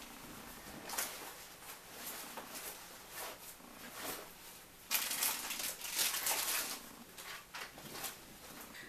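Rustling and handling noise as school supplies are packed into a book bag, with short knocks, and a louder stretch of rustling about five seconds in.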